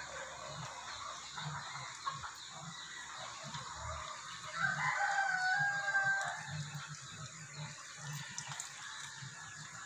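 A rooster crows once about halfway through: one drawn-out call lasting over a second, over a steady background hiss.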